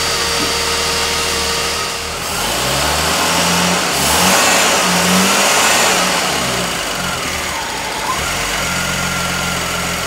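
Ford 200 inline-six with Holley Sniper fuel injection running. About two seconds in it is revved up and held for a few seconds, then it drops back to a steady idle about eight seconds in.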